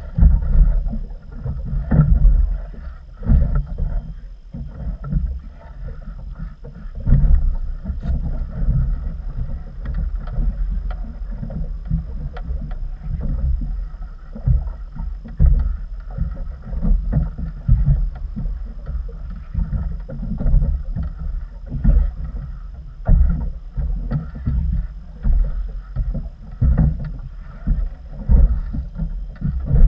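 Wind buffeting the microphone in an uneven, gusty rumble, with water slapping against the inflatable boat's tubes.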